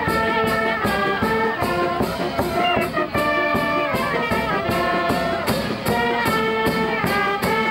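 Brass band playing a lively tune, trumpets and trombones over a steady beat of about three to four strokes a second.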